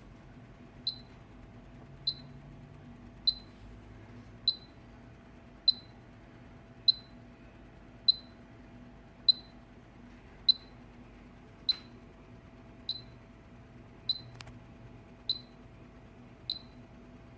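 An electronic beeper gives short high beeps at a steady pace, about one every 1.2 seconds, over a faint steady hum. Two faint clicks come in the second half.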